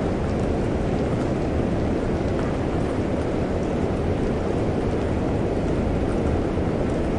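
Steady storm rain, a dense even wash with most of its weight in the low range and a constant low rumble beneath, with no separate thunderclaps.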